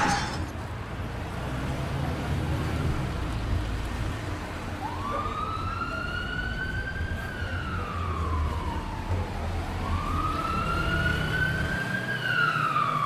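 Police siren wailing in slow rises and falls, starting about five seconds in and sweeping up and down twice, over a low steady rumble.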